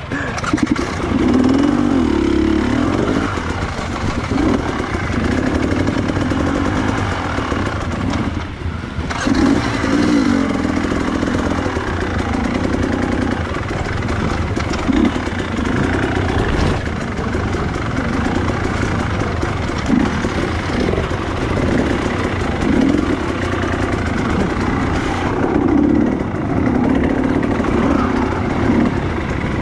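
Dirt bike engine running off-road, revving up and dropping back again and again every second or two as the throttle is worked.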